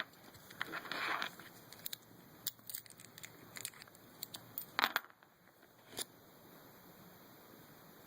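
Small metallic clicks and scrapes of a Swiss Army knife tool picking the pins of an American 5200 padlock. They come as scattered ticks and short scratches, loudest about five seconds in, and stop about six seconds in.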